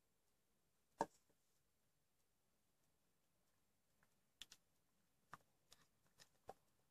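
Faint sharp clicks and taps of a stirring stick knocking against a plastic tub while slime is being mixed: one louder knock about a second in, then about six quicker taps in the second half.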